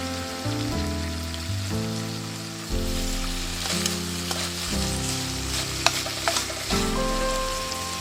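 Food sizzling in a frying pan, with a few sharp pops in the middle, under background music of slow sustained chords.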